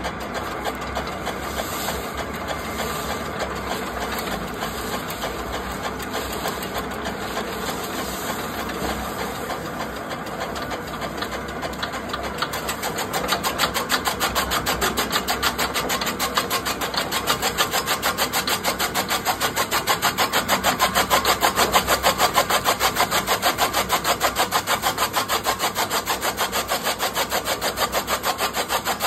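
Electric chaff cutter running, its flywheel and blades turning with a steady mechanical whirr. From about twelve seconds in, a bundle of sugarcane tops is fed in, and the blades chop it in a fast, even rhythm that grows louder.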